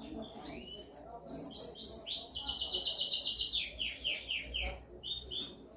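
Domestic canary singing a varied song of chirps and whistles. In the middle comes a fast trill of evenly repeated notes, about ten a second and the loudest part. It is followed by a few slower falling notes.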